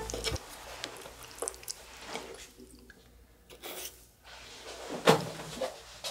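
Light clicks and rustles of food being handled with a plastic fork on a wooden tray, with a sharp thump about five seconds in.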